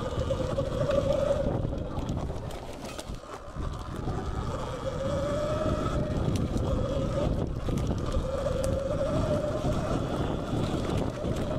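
Sur-Ron Light Bee X electric dirt bike ridden fast along a woodland trail: its motor and drivetrain whine rises and falls in pitch as the rider speeds up and eases off, over wind and trail rumble on the microphone.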